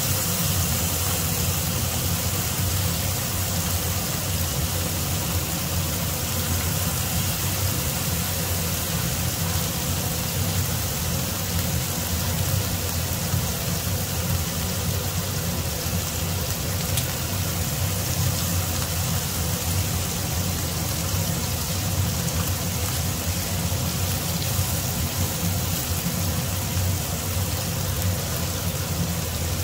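Beef slices frying in butter and a soy and oyster sauce marinade in a nonstick pan: a steady sizzling hiss over a steady low hum.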